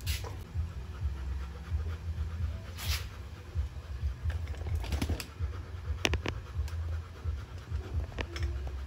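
German Shepherd dog panting, over a steady low rumble, with a few sharp clicks scattered through.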